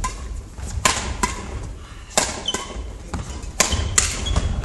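Badminton rackets striking a shuttlecock in a doubles rally: about five sharp cracks in four seconds, over players' footsteps thudding on a wooden gym floor.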